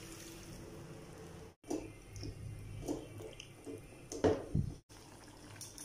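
Spatula stirring chicken pieces through a freshly watered masala in a nonstick pot: soft, irregular squelches and scrapes, the loudest a little past four seconds in. The sound cuts out completely twice for a moment.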